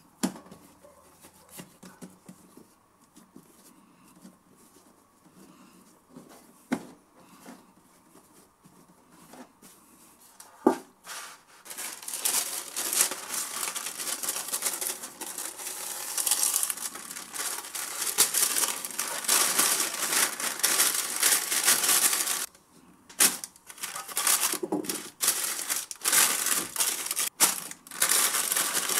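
Parchment baking paper crinkling and rustling loudly in irregular bursts as it is handled and pressed into a metal baking tray, starting a little under halfway through. Before that, a few sharp knocks.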